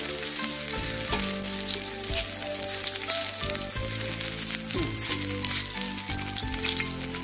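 Donkey intestines sizzling and crackling in oil on a flat iron griddle, a steady hiss with scattered pops. Soft background music plays underneath.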